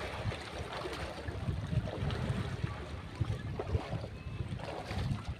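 Wind buffeting the microphone in uneven gusts, over a steady wash of surf at the beach.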